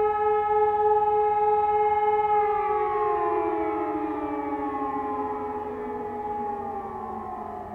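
E57 electromechanical motor sirens sounding a steady tone with a slight pulsing. About two and a half seconds in they wind down, several pitches falling at different rates as the rotors slow: the end of a blast of the fire alarm test signal.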